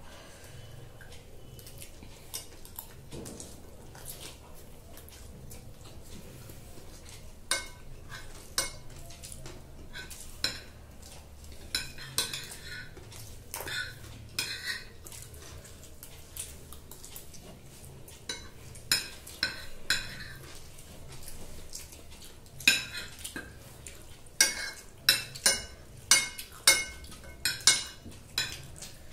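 Forks and spoons clinking and scraping on glass plates as noodles are picked up. The clicks are scattered at first and come in a quick run near the end.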